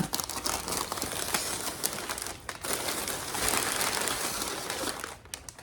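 Packing paper crinkling and rustling as it is pulled out of a shipping box and crumpled, a dense crackle that pauses briefly midway and stops near the end.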